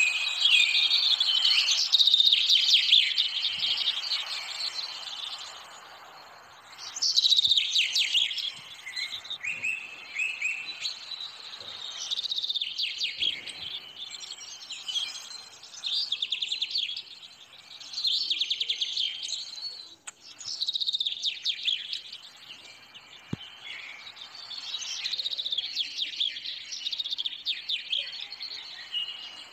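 Birdsong: busy high chirps and trills, phrase after phrase.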